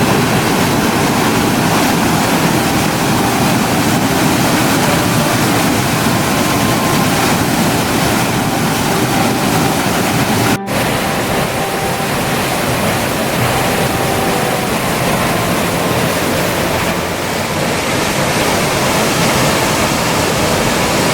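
Waterfall roaring: a loud, steady rush of falling water, broken by a brief gap about halfway through.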